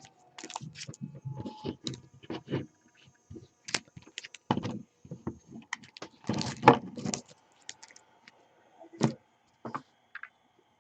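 Trading cards and their packaging being handled on a table: scattered irregular clicks, taps and rustles, with a few louder knocks.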